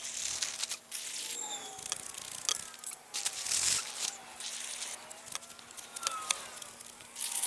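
Dry fence-post concrete mix being poured from the bag into a post hole, hissing and rattling in bursts, with scattered clicks and knocks. Birds chirp throughout in short falling calls.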